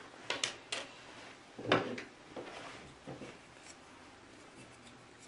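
A few sharp clicks and knocks of hands connecting a length of copper wire to the micro-ohmmeter's test leads. The loudest knock comes about two seconds in.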